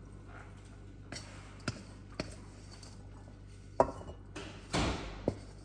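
Kitchen utensils and cookware knocking and clinking, a few separate sharp knocks with the loudest near the middle, then a brief scraping rush and one more knock near the end.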